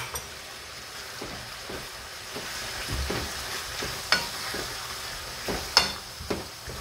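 Chicken and vegetables sizzling in a frying pan over a gas flame while a wooden spatula stirs and scrapes through them, with a few sharp clicks.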